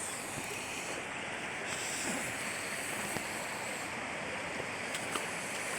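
Waterfall and its stream rushing: a steady, even wash of falling and flowing water.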